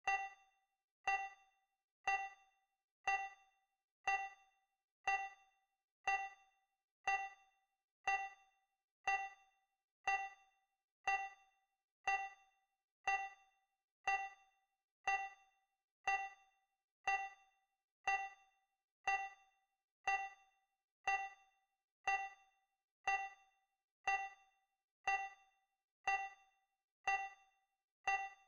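Digital countdown timer tick sound effect: a short, bright ping once every second, each dying away quickly.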